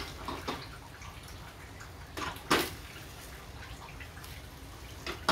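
A few sharp clicks and taps of kitchen work, with the loudest near the end, over a low steady background.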